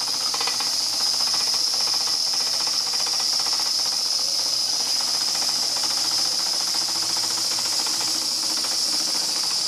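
Märklin 4106 live-steam stationary engine running steadily under steam: a constant high hiss with rapid, even exhaust beats from the small cylinder.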